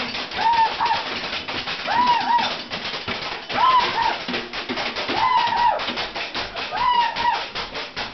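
Improvised kitchen-band percussion: fast, even tapping on kitchen objects. Over it, a short hoot that rises and falls in pitch repeats about every second and a half, five times in all.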